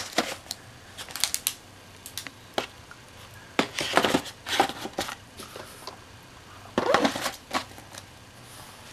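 Handling noise as the contents of a cardboard DVD gift box are packed back in: rustling, clicks and light knocks from cases, cards and the box in scattered bursts with short pauses between.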